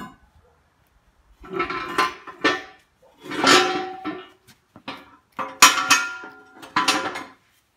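Steel backhoe bucket and quick-connect adapter scraping and clanking against each other, with short metallic ringing, in three bouts as one bucket is unhooked and another attachment is hooked on.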